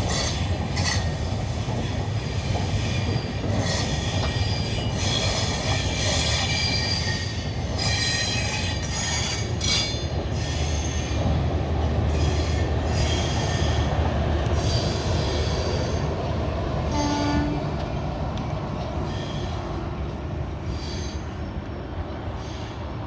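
Dhauli Express passenger train running past: a steady rumble of wheels on rail, with high wheel squealing that comes and goes. A short horn toot sounds about three-quarters of the way through, after which the train noise gradually dies away.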